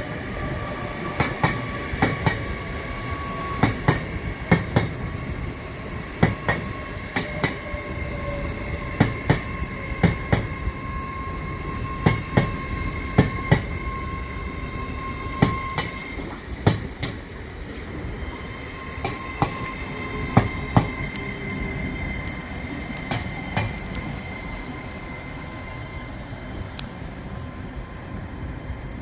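Class 800 Azuma bi-mode train rolling slowly through the station. Its wheels give a run of uneven clicks over rail joints and points, over a steady rumble and a high, thin wheel squeal that fades out and returns.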